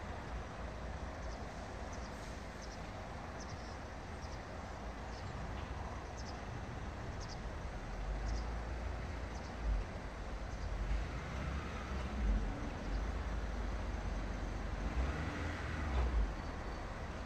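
Steady outdoor background noise, with wind buffeting the microphone in gusts over the second half and a few faint short high chirps in the first few seconds.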